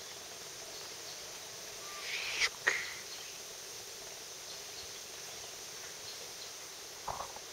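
Steady outdoor background hiss, broken about two and a half seconds in by two sharp, short sounds close together, with a short faint sound near the end.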